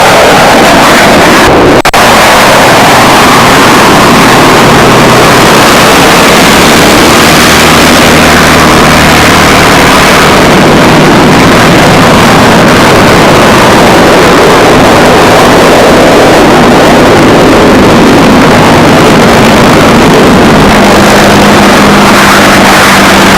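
Loud piston aircraft engine running, so loud that the recording is overloaded into a harsh continuous roar with low steady engine tones underneath. A brief break comes about two seconds in.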